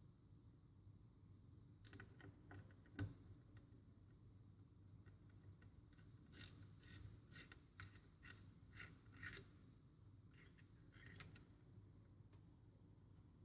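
Faint clicks and small knocks of tools and parts being handled while a laptop's heatsink and cooling fan are taken apart, with one sharper knock about three seconds in and a quick run of light clicks in the middle.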